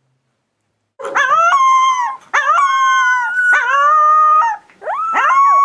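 Three-week-old miniature American shepherd puppy howling: four long, high howls starting about a second in, each held fairly steady and bending down at the end.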